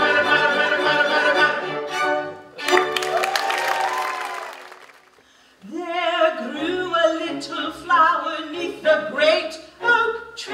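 Operetta singers with a pit orchestra: a trio number ends with a final chord about two and a half seconds in that dies away, and after a short gap a woman starts singing a new song over orchestral accompaniment.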